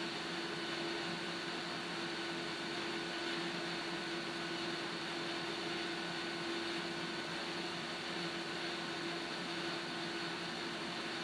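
Steady hiss with a low steady hum underneath, from a gas stove burner heating a kettle of water.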